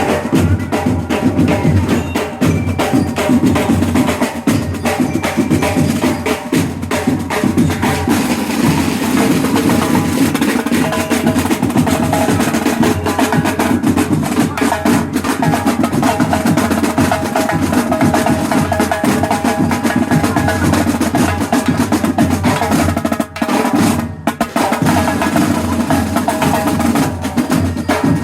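Marching band playing, with snare and bass drums to the fore over steady pitched tones; the playing dips briefly for a moment near the end.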